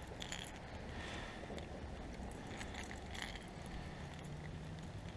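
Faint, scattered metallic clinks of a fishing lure's hooks, with light handling rustle, as a freshly caught pickerel is unhooked.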